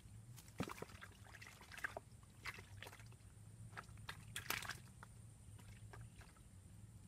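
Light, irregular splashing and sloshing of pond water: a scatter of short sounds over the first five seconds, then quieter.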